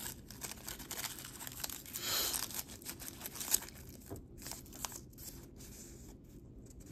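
Jewelry packaging crinkling and rustling as pieces are unwrapped and handled. The longest rustle comes about two seconds in, followed by a few light clicks.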